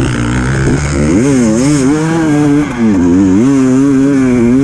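Enduro motorcycle engine under way, its revs climbing after about a second and then rising and falling again and again as the throttle is worked on slippery mud, with a brief drop in revs about halfway through.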